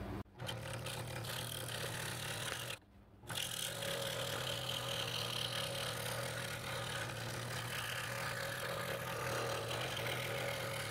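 Scroll saw running with a number 7 blade, cutting a pen outline through a stack of mahogany pieces: a steady hum of the motor and reciprocating blade. It drops out briefly just after the start and again about three seconds in.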